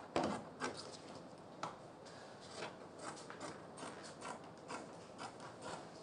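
Scissors snipping through fabric on a table: a run of faint, irregular snips, two or three a second.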